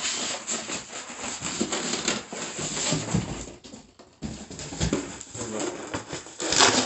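Styrofoam packing blocks and the cardboard box rubbing and scraping against each other as they are handled, with scattered knocks, briefly loudest near the end.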